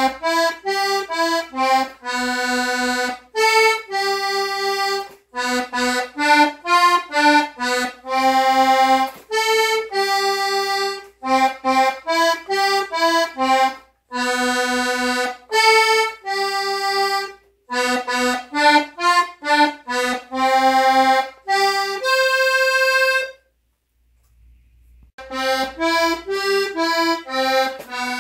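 Hohner Panther diatonic button accordion playing a new tune note by note in short phrases with brief breaks, as by a learner. It stops for about a second and a half near the end, then starts again.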